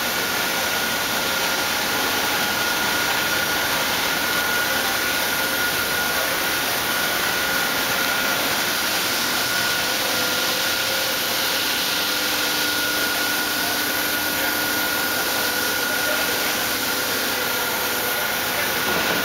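Ikegai NB130P CNC horizontal boring mill running: a steady loud hiss with a constant high whine over it and fainter lower hums.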